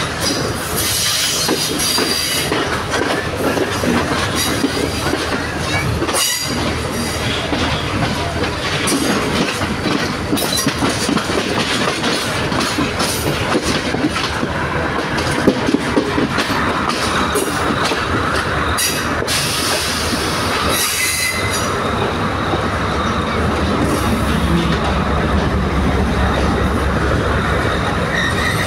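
Passenger train running through a rail yard, its wheels clattering over rail joints and points, with the wheels squealing at times, heard from an open carriage doorway. A deeper low rumble builds near the end.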